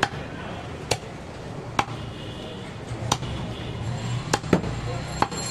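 A heavy butcher's cleaver chopping goat ribs through meat and bone on a wooden stump block. About seven sharp strikes come roughly a second apart, with two close together about four seconds in.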